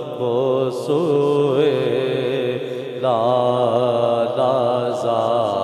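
A man reciting an Urdu naat, singing long, wavering, ornamented lines into a microphone over a PA. A new phrase starts about three seconds in.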